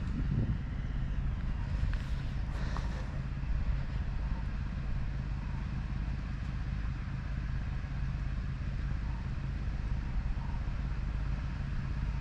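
A motor vehicle's engine idling steadily with a low, even hum, and a few brief faint high sounds about two to three seconds in.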